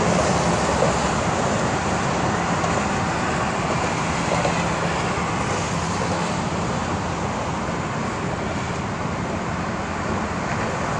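Steady highway traffic noise: cars and trucks passing on a multi-lane roadway, a continuous rushing hum with no single vehicle standing out.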